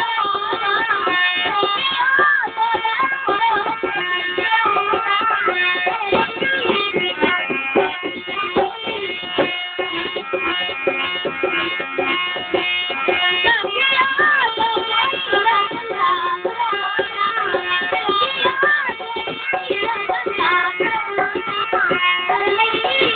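Indian traditional-style music: tabla drumming under sustained instrument tones, with a young singer's voice gliding through ornamented phrases.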